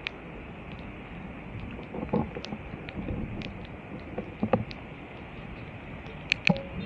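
Steady wash of floodwater and rain on a flooded street, with a few sharp clicks and knocks, the loudest a pair near the end followed by a short tone.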